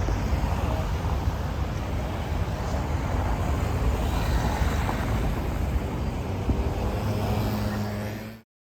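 Steady low rumbling background noise, with a low steady hum joining about seven seconds in, fading out near the end.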